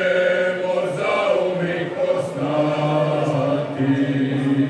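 Men's folk singing group singing a traditional Slavonian song a cappella in several parts. The voices hold long chords that change every second or so.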